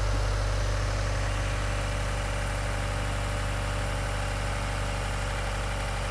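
2015 Subaru WRX's FA20DIT turbocharged flat-four engine idling steadily. It is running normally on its newly installed Nostrum high-pressure fuel pump, with no leaks or fault codes.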